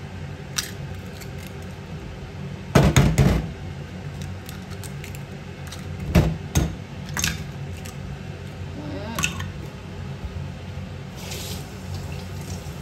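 Eggs being cracked one at a time on the rim of a small ceramic bowl: short sharp knocks of shell on china. The loudest cluster comes about three seconds in, with further knocks around six and nine seconds.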